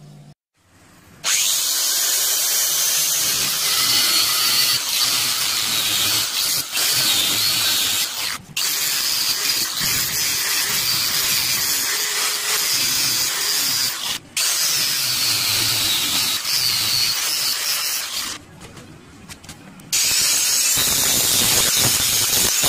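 Angle grinder running under load, grinding down a cast aluminium knife handle held in a vise. It is a loud, steady grinding with a couple of very short breaks and a quieter stretch near the end before it picks up again.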